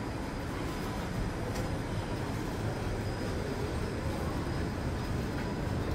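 Steady low rumbling background noise of an indoor shopping mall, with a faint steady high whine.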